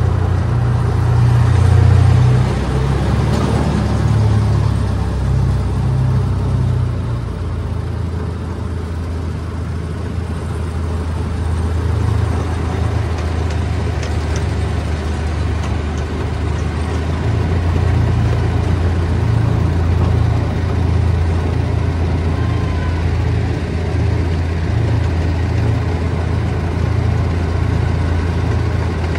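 Miniature park train locomotive's engine running as the train rolls along: a steady, pulsing low rumble whose note settles lower about seven seconds in.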